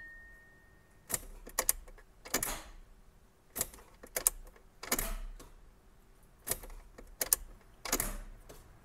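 The starter of a 1984 BMW E30 318i clicks when the key is turned but does not crank the engine. There are about ten sharp clicks, some in quick pairs, roughly one every second. The owner takes it for a brand-new starter sticking, and also wonders whether the battery is low.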